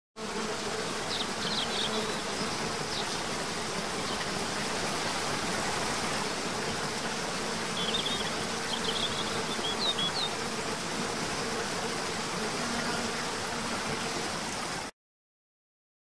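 Steady buzzing hum of flying insects, with a few short, high bird chirps about a second in and again around eight to ten seconds in. The sound starts abruptly and cuts off near the end.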